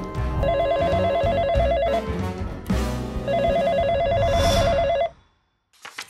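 Telephone ringing twice, a fast warbling two-tone electronic ring, each ring lasting under two seconds, over background music. It is an incoming call about to be answered.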